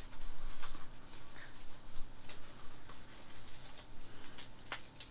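Plastic wrapper and rubber band being worked off a small vinyl figure: faint crinkling and scattered small clicks, with a couple of sharper clicks near the end.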